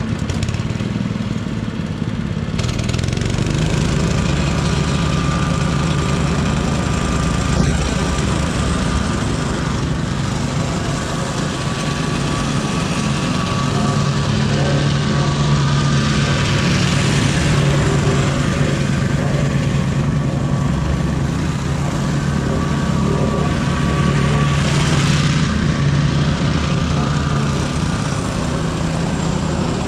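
Small engine-driven vibratory plate compactor running steadily while compacting a gravel base, growing louder in the first few seconds.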